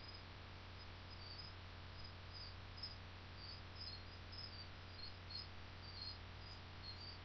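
Faint crickets chirping in short, irregular chirps, over a steady low electrical hum and hiss.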